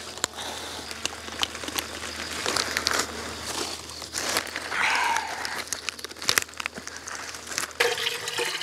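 Leafy vegetables being picked by hand, rustling and crackling: green onions pulled from the soil and cabbage leaves snapping, with many irregular sharp snaps.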